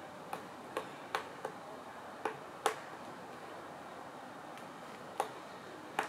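Pileated woodpecker pecking at a tree trunk: single sharp taps at uneven intervals, about eight in all, with a pause of about two seconds in the middle of the run.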